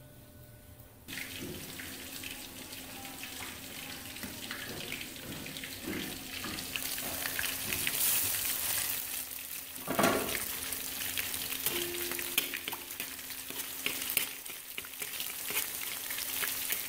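Marinated rohu fish pieces frying in hot oil in a wok: a dense, steady sizzle and crackle that starts about a second in, with a brief louder burst about two-thirds of the way through.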